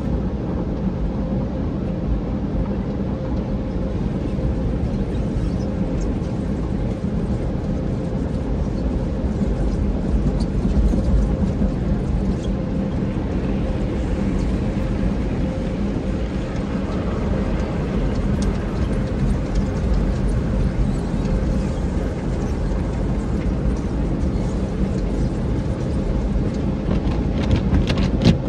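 Tunnel car wash heard from inside the car: spinning wash brushes and water spray working over the body, a steady rushing rumble over the constant hum of the wash equipment. Near the end, brush strips start slapping rapidly against the windshield.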